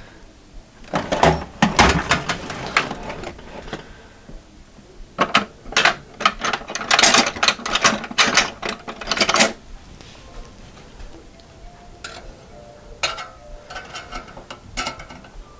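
Hands handling a plastic car stereo head unit while pulling a part or protective covering off it: a run of clicks, knocks and short scraping rustles in two busy spells, then a few lighter ticks near the end.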